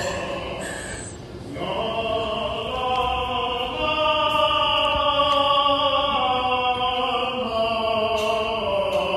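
A group of men singing opera, holding long sustained notes together, with a brief pause about a second and a half in before the singing swells again.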